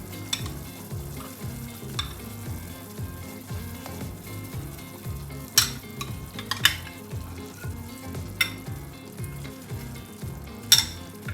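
Pot of chicken stock bubbling on the boil, with a few sharp clicks and knocks as chicken pieces go into the pot, the loudest near the end.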